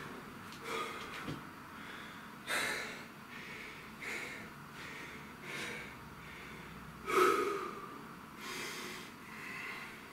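A man breathing hard after exertion, one loud breath every second or two with the strongest about seven seconds in: recovery breathing after a set of dumbbell exercises.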